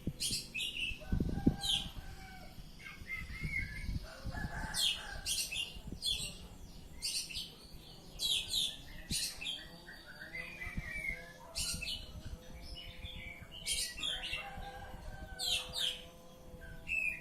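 Oriental magpie-robin (kacer) singing continuously: rapid, sharp, high notes mixed with lower warbled chirping phrases. There is a thump about a second and a half in.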